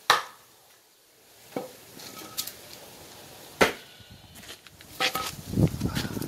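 Sharp knocks and clicks of hard objects, a second or so apart, with the loudest about three and a half seconds in. Near the end comes a cluster of low thuds and rattling, as things are handled and knocked together.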